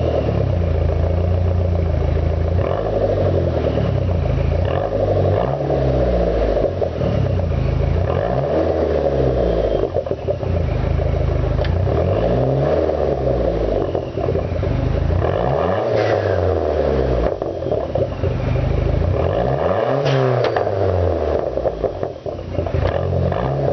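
Stock Dodge Neon SRT-4's turbocharged 2.4-litre four-cylinder engine being revved repeatedly, its pitch climbing and falling back every few seconds.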